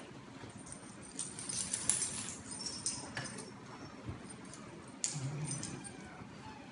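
Several puppies scuffling and playing on a fabric dog bed: rustling with scattered light clicks and jingles, busiest around two seconds in and again about five seconds in.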